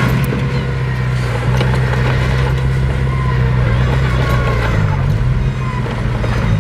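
Heavy diesel engine of construction machinery running steadily, its pitch dipping briefly about five seconds in.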